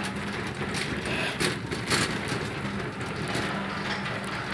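Metal shopping cart rolling across a hard store floor: a steady rattling rumble with a few sharp clicks in the first two seconds, over a steady low hum.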